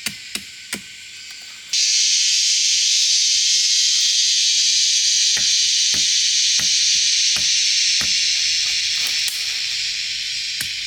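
A few sharp knocks, then, about two seconds in, a loud sizzle starts suddenly, like food dropped into hot oil, and carries on with scattered crackles.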